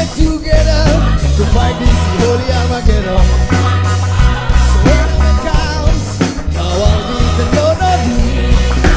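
Choir and band performing a reggae-style song: voices singing over a steady, stepping bass line and drum beat.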